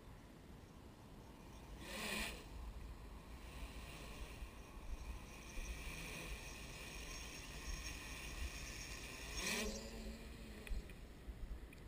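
DJI F550 Flame Wheel hexacopter's six brushless motors and propellers whining in flight, swelling louder about two seconds in and again near ten seconds as it passes close.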